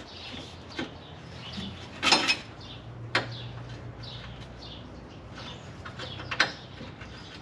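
Scattered metal clicks and clinks of a wrench working on rusted brake line fittings, with a sharper clink about two seconds in, over a steady low hum.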